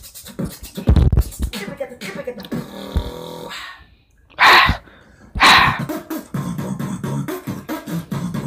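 Beatboxing: mouth-made drum sounds, with low kick-drum thumps, two loud hissing snare hits about four and a half and five and a half seconds in, then a quicker steady beat.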